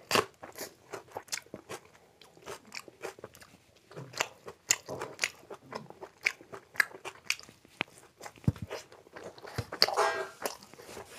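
Eating sounds: a sharp bite into a raw green chili at the start, then a run of irregular crunches and chewing as puri and Manchurian are eaten.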